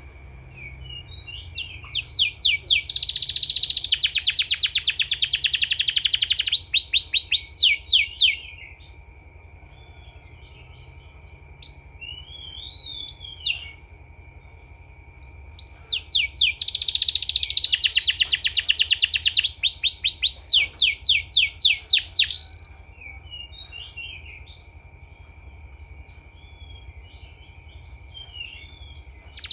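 Canary singing: two long passages of fast, rapidly repeated trill notes, one starting about a second and a half in and another about sixteen seconds in, each lasting several seconds, with soft scattered chirps in between. A steady thin high tone runs underneath.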